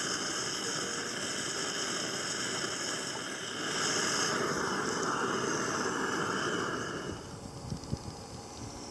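Handheld butane gas torch hissing steadily as its flame is played onto dried dung to light it, growing louder about three and a half seconds in. It cuts off about seven seconds in, leaving a quieter hiss with a few soft knocks.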